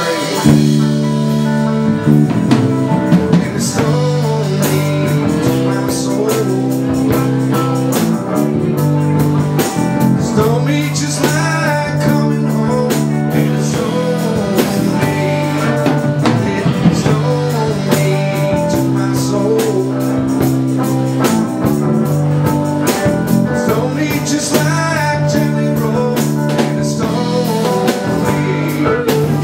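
Live band playing a blues-rock song: electric guitar, bass and drum kit with a singer, at a steady beat.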